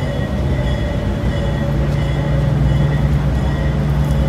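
New R211A subway cars rolling slowly along the track while being towed, with a steady low hum that grows louder about a second in.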